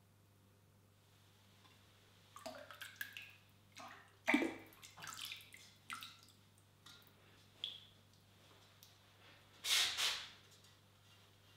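Liquid ceramic glaze splashing and dripping as a teapot is dipped into and lifted out of a bucket of glaze, then a short rush of glaze poured from inside the pot back into the bucket near the end.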